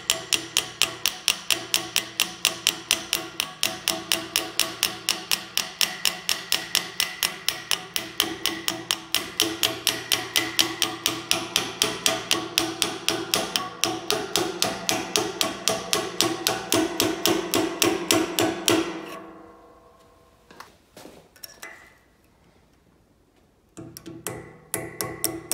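Rapid, even hammer taps on a steel punch, about five a second, with a ringing metallic tone, driving a pin out of a rusty adjustable wrench held in a vise. The tapping stops about 19 seconds in. A few single knocks follow, then the tapping starts again near the end.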